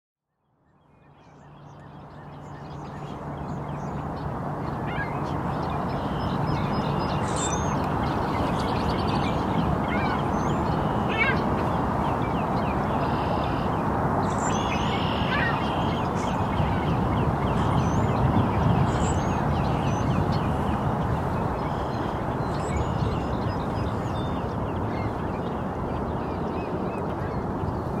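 Ducks and other birds calling, with many short chirps and whistles and a few quacking calls, over a steady rushing background. The sound fades in over the first few seconds.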